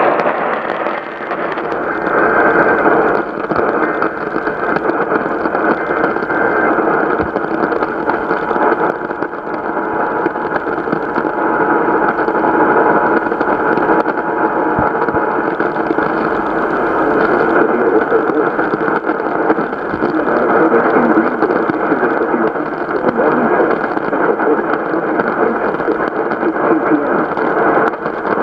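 A radio broadcast of an emergency alert in poor reception: a voice half-buried in heavy static and hiss, too garbled to make out.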